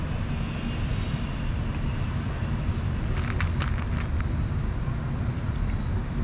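A cat crunching dry kibble from a plastic tub, with a short run of crisp crunches about three seconds in, over a steady low rumble.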